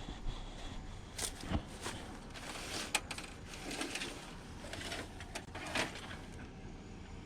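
Junk in a curbside trash pile being handled and moved: scattered knocks, clicks and light clatter, a handful of them over several seconds.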